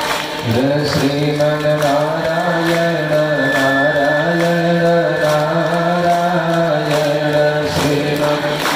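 A male voice chants one long drawn-out note for about seven seconds. It slides up into the note about half a second in, holds it with slight steps in pitch, and stops near the end.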